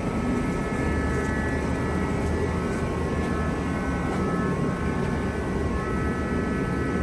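Steady mechanical drone with a few faint, steady high-pitched whining tones, unchanging throughout.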